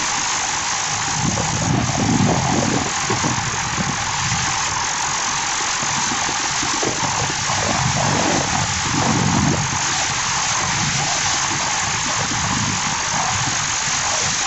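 Yamaha dirt bike under way: a steady rush of wind over the microphone with the engine running beneath it, its low note swelling twice, about two seconds in and again around eight to nine seconds.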